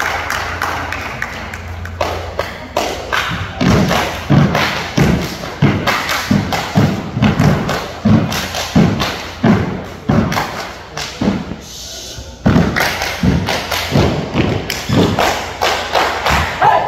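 Loud rhythmic thumps, about two a second, with sharp claps or slaps between them, pausing briefly about two-thirds of the way through.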